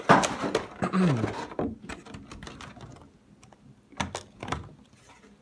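Clear plastic packaging tray being pulled out of a cardboard collection box and handled: rustling and scraping with a brief squeak in the first second or two, then a few sharp plastic clicks about four seconds in.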